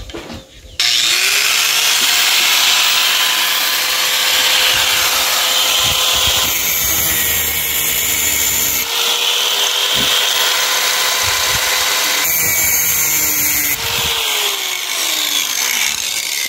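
Angle grinder with a thin cutting disc spinning up about a second in, then grinding a slot into the head of a steel chainsaw screw held in pliers. The motor tone falls away near the end as the grinder winds down.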